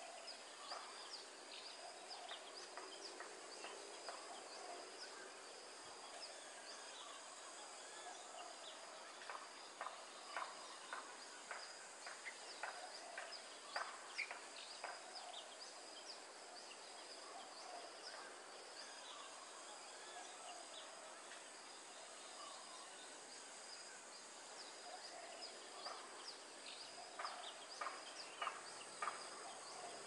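Songbird nestlings begging with short, sharp cheeps in quick clusters, busiest about ten seconds in and again near the end, over a steady high insect drone.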